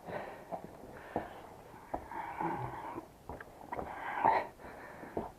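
A man breathing heavily and wheezily after crawling through the mine, in repeated puffs, with a few sharp clicks and scrapes of him moving on the rock. It is muffled, recorded through an action camera's case.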